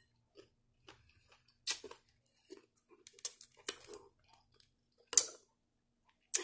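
Close-up chewing of a mouthful of raw salad greens and cucumber: irregular short crunching clicks and wet mouth sounds, with a handful of louder crunches spread through.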